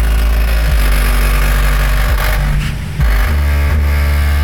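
Subwoofer playing deep bass tones that jump to a new pitch every second or so, with a buzzing rattle over them that sounds like a farting exhaust.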